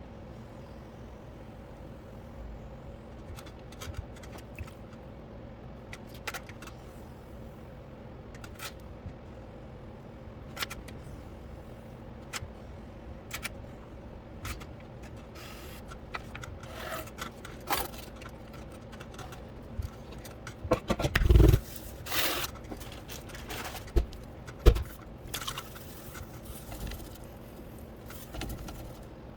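Steady hum of a potter's wheel motor under scattered clicks, scrapes and knocks of tools and clay being worked. A cluster of louder knocks and scraping comes about two-thirds of the way through, then one sharp knock a few seconds later.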